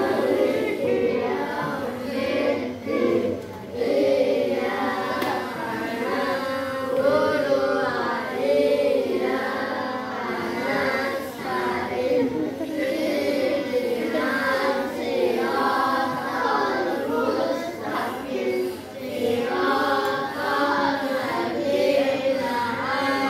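A group of children singing a song together in phrases, with short breaks between them.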